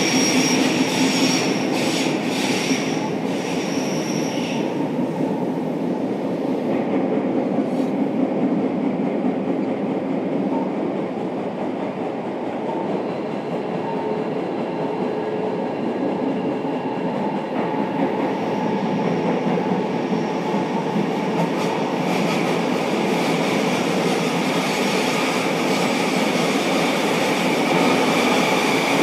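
Onboard running sound of a JR Kyushu 305 series electric train with Toshiba permanent-magnet synchronous traction motors, heard from inside the motor car: a steady rumble of wheels on rail with thin whistling tones from the drive and wheels. The tones are clear for the first few seconds, fade out, and return near the end.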